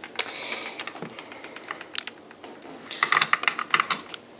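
Small clicks and taps from handling the back of an elevator push-button panel, where a loose part is being squeezed back into place. A few scattered clicks, then a quick run of clicks about three seconds in.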